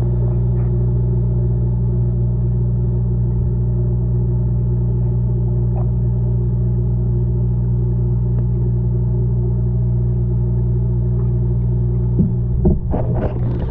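A steady, loud low machine hum made of several even tones, unchanging in pitch. About a second and a half before the end, a run of irregular knocks and handling noises starts over it.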